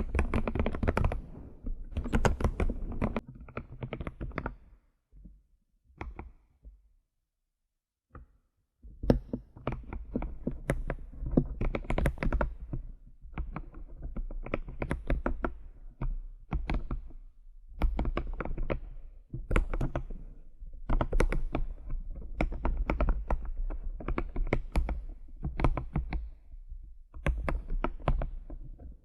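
Computer keyboard keys being tapped in quick runs of keystrokes. About five seconds in the typing stops for about four seconds, broken by only a couple of single taps, then resumes in steady runs.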